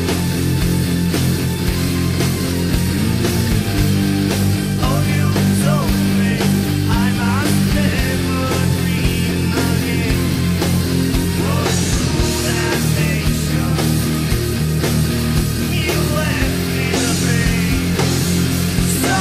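Jackson electric guitar in D standard tuning playing a metal song with the band, its lead notes bent and wavering, over a steady drum beat and sustained low notes.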